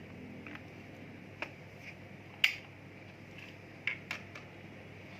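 A few sharp plastic clicks and knocks from a travel steam iron being handled and worked. The loudest comes about halfway through, with a quick pair of clicks a little later.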